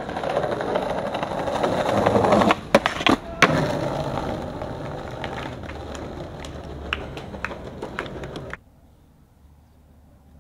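Skateboard wheels rolling over paving stones, growing louder, then a quick run of sharp clacks of the board hitting the ground about two and a half seconds in. The rolling carries on and fades, with a few lighter clacks, then cuts off suddenly to quiet outdoor background a little past eight seconds in.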